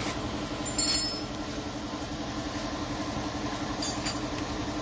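A car engine idling steadily, with two short ringing metal clinks of tools or brake parts, the louder about a second in and a fainter one near the end.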